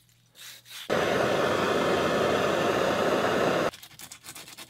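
A propane torch flame hisses steadily for nearly three seconds, heating the copper pipe joint to melt off an old drip of solder, then cuts off abruptly. It is followed by quick, rapid scratching of sandpaper being rubbed on the copper pipe.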